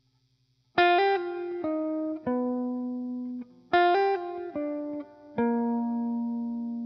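Background music: a plucked guitar plays a short melody of a few notes stepping down in pitch, each note ringing out and fading, and the phrase is played twice.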